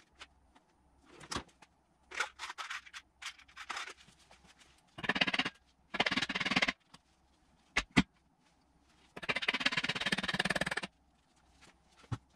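Metal-on-metal hammering: a roll pin being driven out of a gearbox shift selector with a 4 mm rivet used as a punch. Scattered taps, a few bursts of rapid strikes, and two sharp single blows about eight seconds in.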